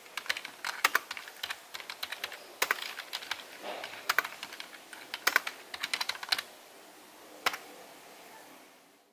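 Typing on a computer keyboard: irregular runs of key clicks for about six seconds, then one last single click about seven and a half seconds in.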